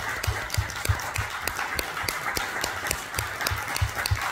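Audience applauding steadily, with one pair of hands clapping close by at about three claps a second.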